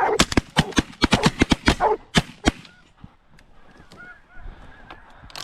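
A rapid volley of shotgun blasts from several hunters firing together, about a dozen shots in the first two and a half seconds. After the shooting stops, geese honk repeatedly in the background.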